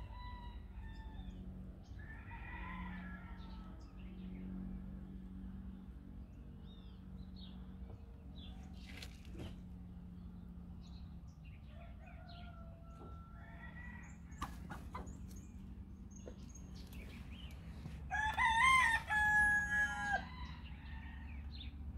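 Rooster crowing once near the end, a long cock-a-doodle-doo in several steps, the loudest sound here. Before it come a few softer calls and some sharp clicks, over a steady low hum.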